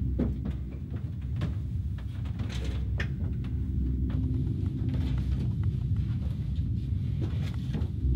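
Scattered light knocks and shuffles of footsteps and handling as someone moves about on an attic floor, over a low steady drone.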